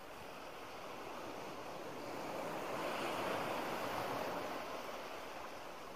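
A steady rushing noise, like surf, that swells to its loudest about halfway through and then eases off.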